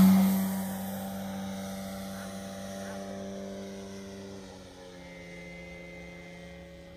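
Motor and propeller of a radio-controlled Sbach aerobatic model plane, a steady-pitched tone that is loud as it lifts off and fades as the plane climbs away.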